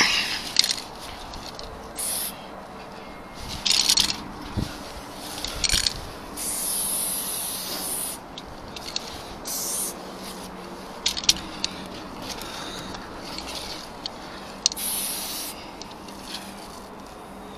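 Aerosol spray paint can hissing in repeated bursts, short squirts and a few longer sprays, as graffiti is sprayed onto a freight wagon's side, with a few sharp clicks between them.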